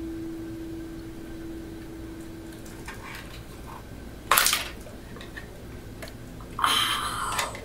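Clicks and rattles of a Crosman C11 pistol being handled and worked at in the hands: a short sharp clatter a little over four seconds in and a longer one near the end.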